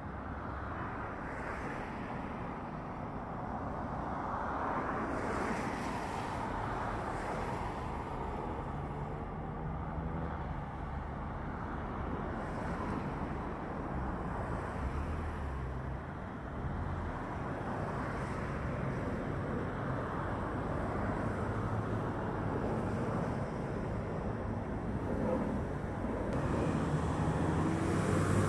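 Airbus A321 airliner's twin jet engines at takeoff thrust, a steady rushing noise through the takeoff roll and climb-out that grows a little louder toward the end, with wind on the microphone.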